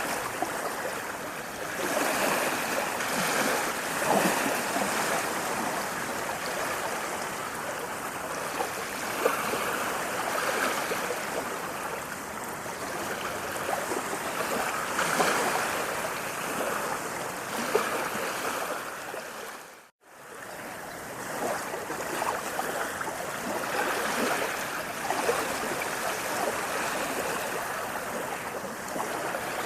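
Flowing water, a steady rushing that swells and eases every few seconds, dropping out abruptly for a split second about two-thirds of the way through.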